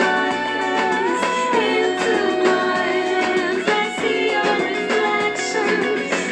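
Background music: a song with a singing voice over instrumental backing.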